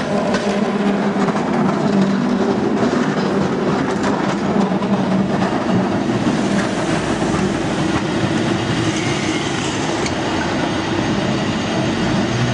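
San Francisco cable car running on its street rails, a steady rattle of wheels and running gear over a constant hum, the sound of the cable running beneath the street in its slot.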